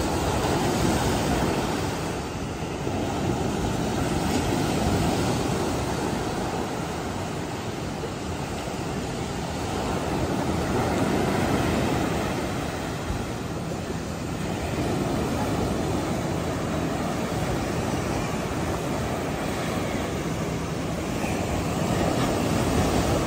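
Ocean surf breaking on a sandy shore: a steady wash of waves, swelling and easing every few seconds as each one breaks and runs up the beach.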